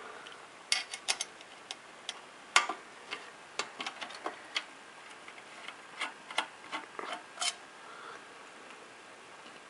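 Irregular small clicks and taps of a screwdriver working the X-clamp screws on an Xbox 360 slim motherboard, a dozen or more ticks over several seconds before it goes quiet near the end.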